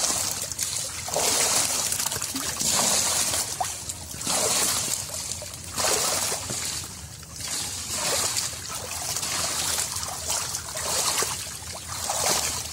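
Muddy water splashing and sloshing around a net crowded with live pond fish, in surges about every second and a half.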